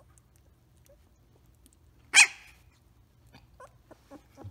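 A Samoyed gives a single short, sharp bark about two seconds in, followed by a few faint short squeaks near the end.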